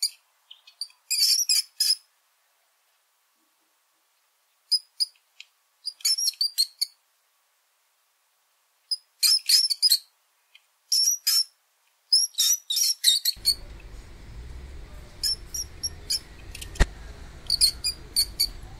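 Rodent squeaking: clusters of rapid, very high-pitched squeaks broken by short silent pauses. About two-thirds through, a steady background hiss comes in, with a single sharp click shortly after.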